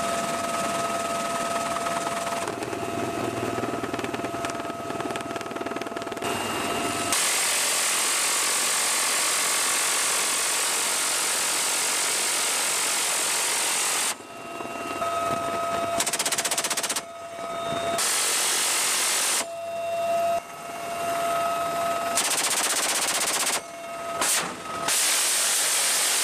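UH-1Y Venom helicopter cabin noise with a steady whine. About seven seconds in, an M134 minigun fires one long, unbroken burst lasting about seven seconds. It then fires several shorter bursts of a second or two, with the helicopter's whine heard between them.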